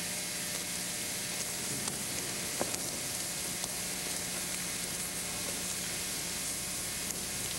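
Steady hiss of old camcorder videotape audio, with a low steady hum under it and a few faint ticks.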